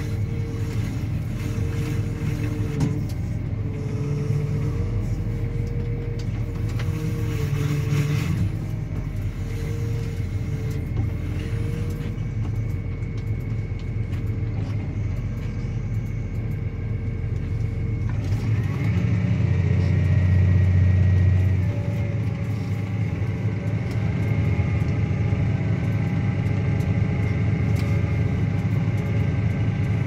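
Claas Axion 850 tractor's six-cylinder diesel engine running under load, pulling a Kuhn Varimaster reversible plough, a steady low drone. A little past halfway the engine note changes and grows louder for a few seconds, then settles with a faint high whine, as the plough reaches the end of the furrow.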